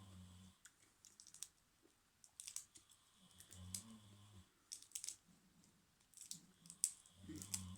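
Close-up chewing with wet mouth clicks and crunches while eating shrimp and fresh vegetables, quiet and intermittent. Two soft low hums come in, around the middle and near the end.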